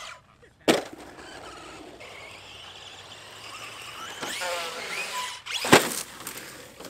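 Electric RC trucks' motors whining up and down in pitch as they race over dirt jumps. A sharp landing impact comes about a second in, and a louder crash near the end as a truck tumbles into the brush.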